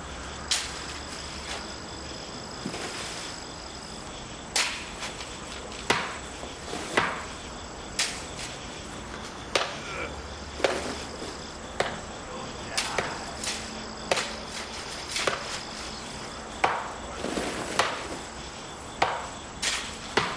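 Halloween sound-effects recording: a run of sharp, irregular knocks, like chopping or hammering on wood, one to two seconds apart, over a steady hiss. A thin high steady tone runs under it near the start and again around the middle.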